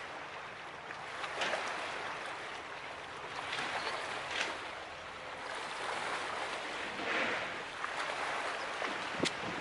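Sea water washing against the rocks at the foot of a seawall, a steady wash that swells and eases, with a sharp click near the end.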